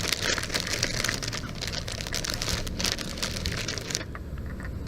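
Plastic packaging crinkling and rustling as a new car stereo head unit is unwrapped from its box, in a dense run of small crackles that stops sharply about four seconds in.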